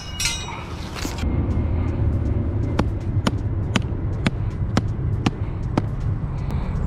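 A rubber mallet driving a steel rod-holder stake into the ground: seven sharp, even strikes, about two a second, over a low steady rumble.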